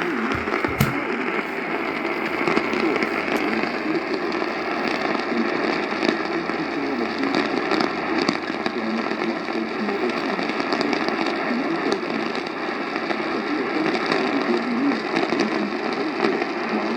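AM radio receiver putting out a steady hiss of static with scattered crackles and a sharp crack about a second in, the kind of interference thunderstorm lightning puts on the AM band.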